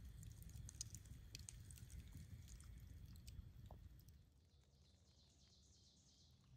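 Faint crackling of a burning brush pile: scattered sharp pops and snaps over a low rumble. About four seconds in this gives way to a faint, steady high hiss.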